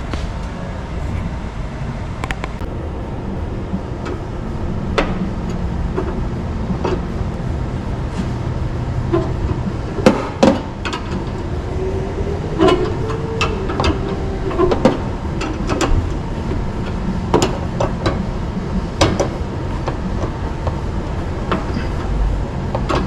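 Irregular metallic knocks and clanks of hand tools working on a vehicle, over a steady low hum. A faint whine rises and falls about halfway through.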